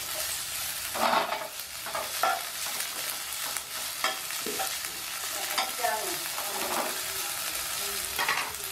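Yakisoba noodles sizzling in a hot nonstick frying pan while a spatula stirs and tosses them: a steady frying hiss with short scraping strokes of the spatula against the pan every second or so.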